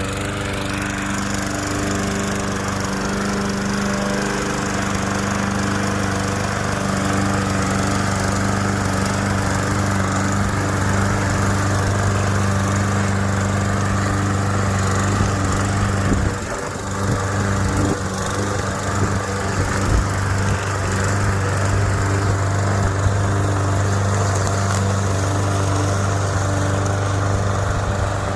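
Walk-behind gas lawn mower running with a steady engine hum. About sixteen seconds in, the engine note dips and wavers briefly, and a few short knocks follow.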